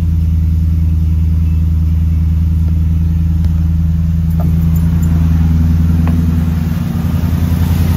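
Ford Raptor SVT's 6.2-litre V8 idling steadily just after being started on fresh oil, with oil pressure up. The idle gets a little louder and choppier in the last second.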